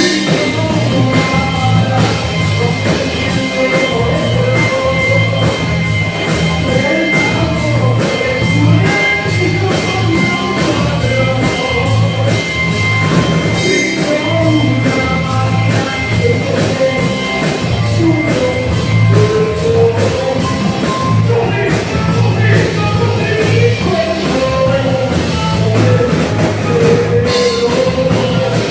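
A band playing rock music live, with a steady drum beat, guitar and a singing voice.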